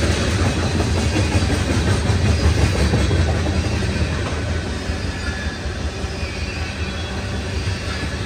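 Freight train cars rolling past, a steady low rumble of steel wheels on the rails.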